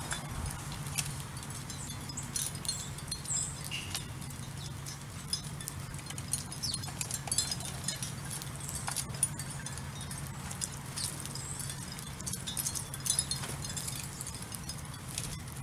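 House sparrows pecking at scattered birdseed on asphalt, an irregular ticking of beaks and seed husks with a few short, high chirps. A steady low hum runs underneath.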